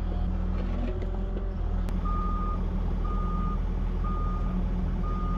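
Excavator's diesel engine running steadily, with its travel alarm starting about two seconds in: four even, single-pitch beeps, one a second, as the machine moves on its tracks.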